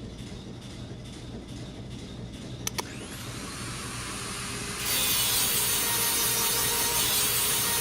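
Portable pneumatic air grinder: a click, then the grinder spins up with a steeply rising whine, and about five seconds in a loud, steady rush of compressed air sets in and holds.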